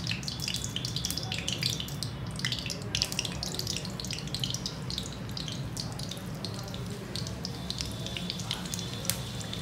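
Chicken samosas deep-frying in hot oil in a small iron kadai: a steady sizzle with many small crackles and pops, over a steady low hum.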